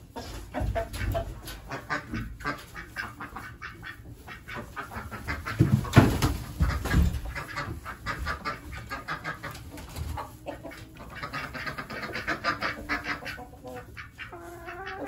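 Chickens clucking in a coop while a wire cage is carried in and set down on straw bedding, its knocks and rattles loudest about six seconds in.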